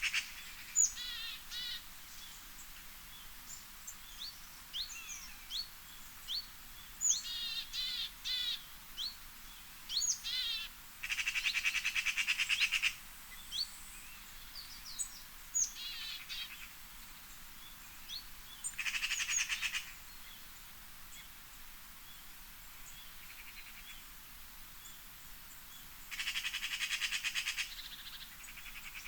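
Outdoor birdsong: many short chirps, quick whistled sweeps and trills, broken three times by a buzzy, rapidly pulsed call lasting about two seconds.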